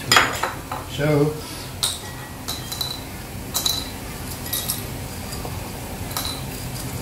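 White ceramic bowls knocking on a tiled counter, then whole spices such as cinnamon sticks and cloves dropped into a china bowl: a louder knock at the start, then scattered light clinks, several with a short ringing tone.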